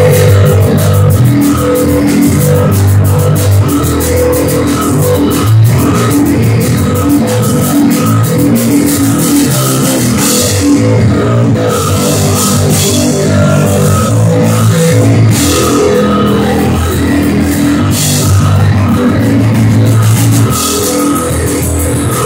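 Rock band playing live: electric guitar, bass guitar and drum kit together, instrumental with no singing.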